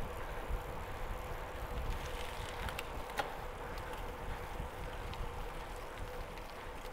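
Bicycles rolling along a road: a steady rumble of tyre and wind noise on the riding camera's microphone, with a few short clicks about three seconds in.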